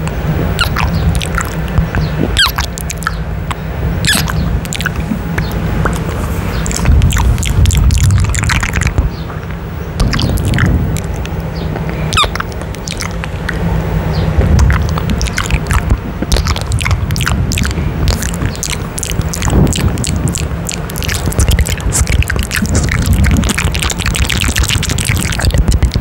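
Wet kissing and lip-smacking sounds made right on a condenser microphone's grille: a steady run of short sharp smacks and pops over a heavy low rumble of close breath.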